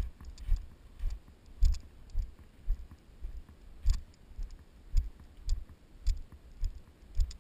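Walking footsteps on patchy snow and dry ground, heard through a body-worn camera as a regular low thump about twice a second, each with a small click.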